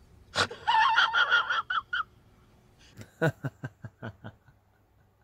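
A shrill, cackling laugh for about a second, then a man laughing in a run of short, quick breaths that slow and fade.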